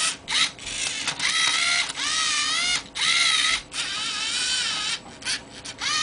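Lego Mindstorms NXT servo motors whining in about six short runs, each rising and falling in pitch, as the robot's arms flip and turn a Rubik's Cube.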